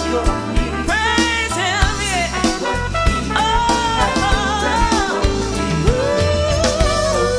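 Background music: a jazzy song with a singing voice over a steady beat.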